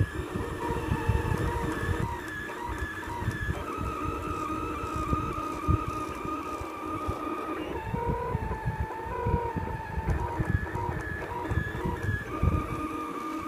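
Kossel delta 3D printer's stepper motors whining while the print head moves as it lays down PLA. The whine is several tones at once, and they change pitch every second or two as the moves change, with a larger shift about four seconds in and again about eight seconds in, over a low uneven rumble.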